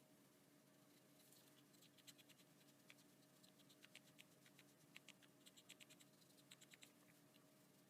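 Faint, irregular scratching of a sanding stick rubbed over a plastic model-kit part, smoothing down a gate mark left where the part was cut from the runner.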